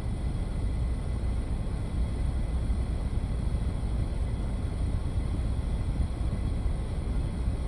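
Car engine running steadily, heard from inside the car's cabin as an even low rumble.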